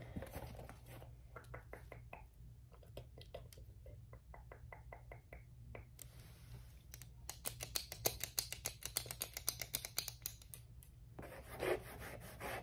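ASMR tapping and scratching with a small red object held close to the microphone. It starts with separate taps, a few a second, then becomes faster, denser tapping in the second half.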